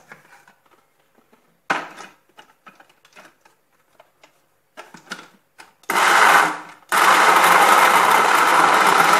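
Countertop electric blender: clicks and knocks as the plastic lid is pressed on and the jar is seated on the motor base. About six seconds in, the motor runs in a one-second burst, stops briefly, then runs steadily, blending frozen strawberries with milk.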